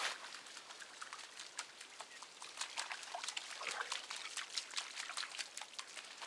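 A Cavalier King Charles spaniel splashing through a shallow stream, a quick, irregular run of small splashes and paw steps in water and wet leaves.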